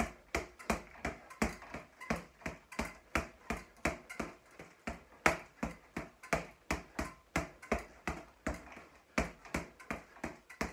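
Boxing gloves striking a floor-to-ceiling double-end ball in a steady run of punches, about three sharp slaps a second, the ball on tightened elastic bands so it rebounds fast. One punch a little past the middle is the loudest.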